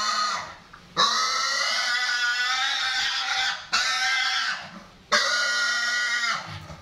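Young pig squealing in long, loud screams while restrained and castrated. The screams break off briefly for breath about a second in, near the middle, and about five seconds in.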